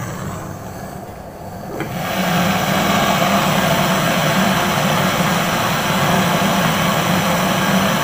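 Handheld butane gas torch lit about two seconds in with a click, then burning with a steady rushing hiss as its flame is held on a refrigerator's copper refrigerant pipe at the compressor.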